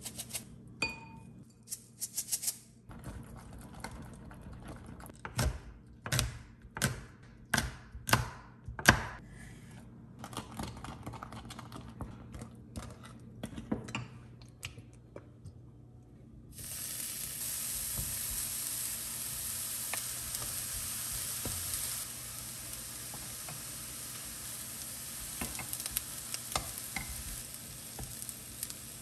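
A wooden spoon stirring a thick gochujang seasoning sauce in a ceramic bowl, with a run of sharp clacks against the bowl. About sixteen seconds in, eggplant slices start a steady sizzle in an oiled frying pan.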